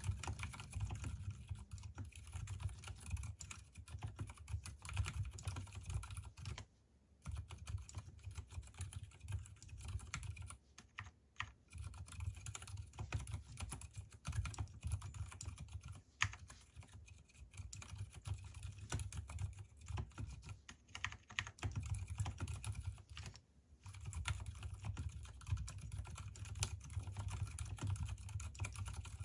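Typing on an Mstone Groove T mechanical keyboard with unlubricated Gateron silent brown switches and lubricated stabilizers: a steady stream of keystrokes, with brief pauses about 7 and 23 seconds in.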